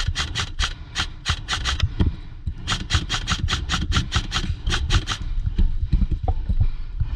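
Airsoft guns firing in quick semi-automatic shots, about five or six sharp cracks a second, in two runs with a short pause about two seconds in, over a low steady rumble.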